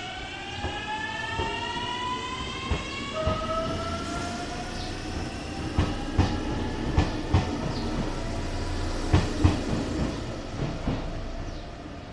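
JR Shikoku 8000 series electric train accelerating out of the station, its GTO VVVF inverter whining in stacked rising tones that drop suddenly in pitch about three seconds in, climb again and fade. From about six seconds the wheels click over rail joints as the cars pass.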